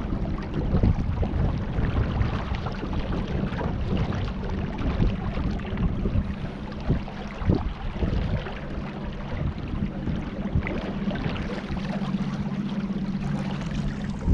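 Water splashing and lapping around a kayak on the river, with wind buffeting the microphone. A steady low hum runs underneath, with a few irregular knocks.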